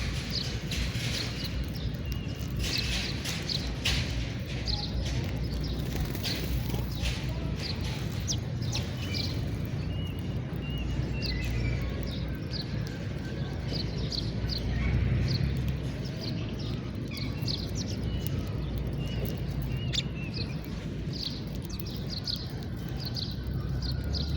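House sparrows chirping: many short, sharp chirps in quick succession, with a steady low rumble underneath.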